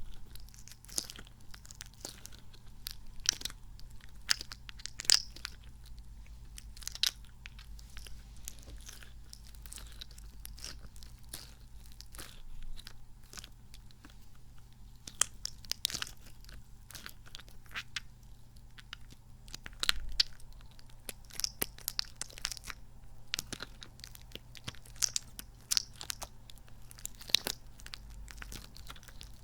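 Squishy kidney-bean toy being squeezed and worked in the fingers close to the microphone: irregular sticky, squelching clicks and crackles, a few sharper pops standing out.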